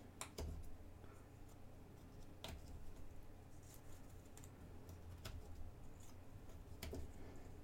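Faint clicks and taps of cardboard jigsaw puzzle pieces being handled and pressed into place on a table, with a few sharper clicks scattered through.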